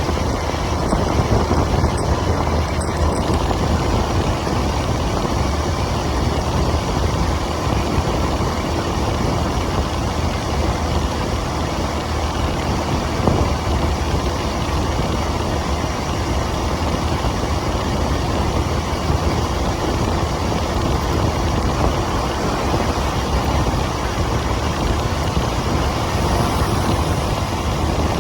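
Motorcycle engine running steadily during a ride, heard from on the bike, with a constant low hum and road noise.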